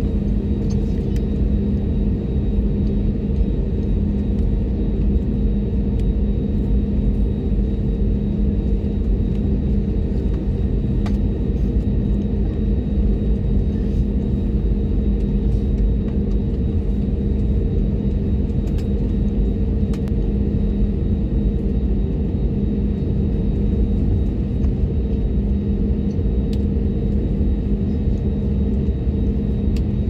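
Airbus A321neo cabin sound while taxiing: a steady engine drone with a constant low hum and a low rumble, unchanging throughout, with a few faint clicks.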